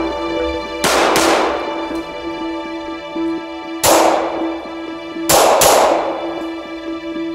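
Five 9 mm shots from a Glock 19 pistol: a quick pair about a second in, a single shot near four seconds, and another quick pair a little past five seconds, each with a ringing tail, over background music.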